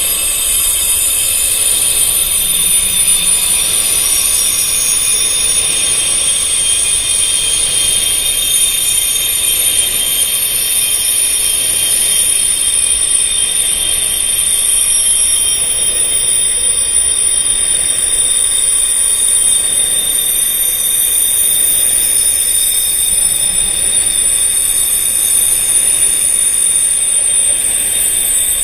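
Wind chimes tuned to tinnitus frequencies for sound therapy, ringing as a dense, overlapping wash of very high tones with no separate strikes standing out, over a soft hiss.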